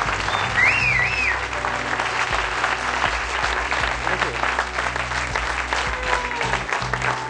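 Audience clapping and applauding over loud background music, with a short warbling whistle about a second in.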